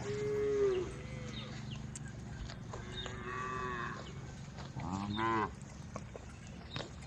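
Cows mooing: a moo falls in pitch and fades in the first second, then a fainter, higher moo follows, and another short moo comes about five seconds in.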